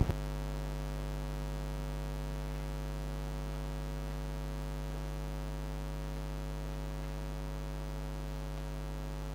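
Steady electrical mains hum from the sound system: a low, unchanging drone with a stack of evenly spaced overtones.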